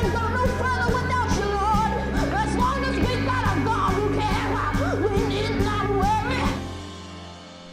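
A boy singing gospel-style into a microphone, sliding and bending through the notes over a band with bass and a steady drum beat. The music stops about six and a half seconds in, leaving a fading tail.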